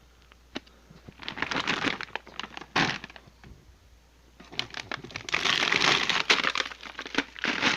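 Plastic bags of frozen food crinkling and rustling as they are handled and lifted out of a chest freezer. There is a single knock about three seconds in, and the crinkling grows louder and busier over the second half.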